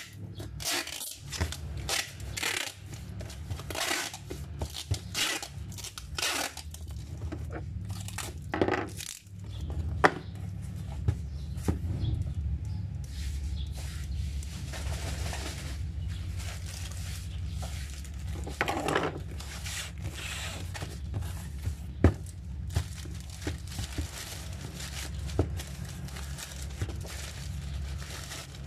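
Small clinks, scrapes and rustles of utensils and packaging being handled on a counter, busiest in the first nine seconds, with a steady low hum underneath from about nine seconds in.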